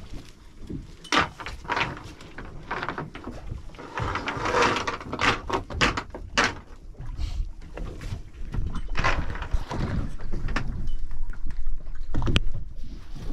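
A wet cast net being gathered and readied at a boat's gunwale: irregular knocks and clatter as the weighted net is handled, with splashing water from the mesh, over a low wind rumble on the microphone.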